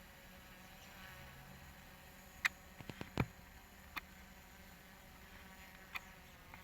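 Faint, steady buzz of a Hubsan Zino Pro quadcopter's propellers in flight, with a few sharp clicks scattered through it.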